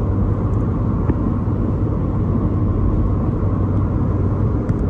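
Steady wind and road noise heard inside the cabin of a 2015 Mini Cooper S at highway speed, a constant rushing with a low hum. The roof rack crossbars' whistle is barely noticeable under it.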